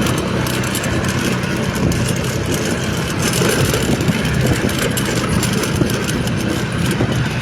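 Motor vehicle engine running steadily, with road noise.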